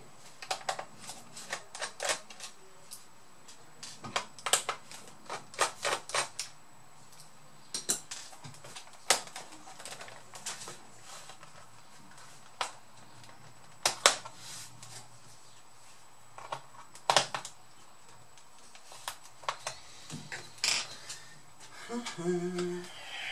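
Irregular sharp clicks and taps of a screwdriver and small screws against the plastic base of a Dell Vostro 3550 laptop as its screws are taken out and the case is handled.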